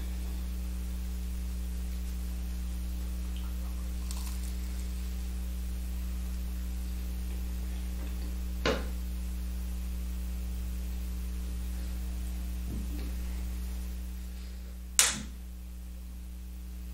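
Steady low electrical hum, broken by two sharp knocks from the neighbours' building work: one about nine seconds in and a louder one near the end.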